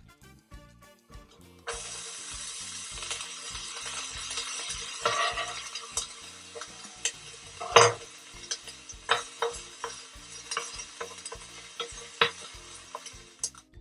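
Sliced onions sizzling in hot oil in a cast-iron skillet, the hiss starting suddenly about two seconds in as they go into the pan. A wooden spoon knocks and scrapes against the pan as they are stirred, the loudest knock about eight seconds in.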